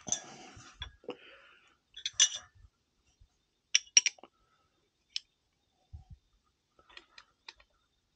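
Open-end wrench clicking and clinking against the brass nozzle assembly of a Riello oil burner's nozzle line while the nozzle is being changed: scattered light metal clicks, a few at a time.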